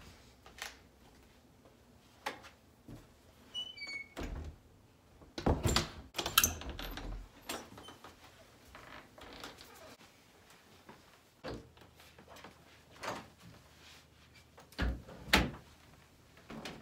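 A door being handled, opening and closing, among scattered knocks and thumps, with a few short high squeaks about four seconds in. The loudest thumps come a little past five seconds in and again near the end.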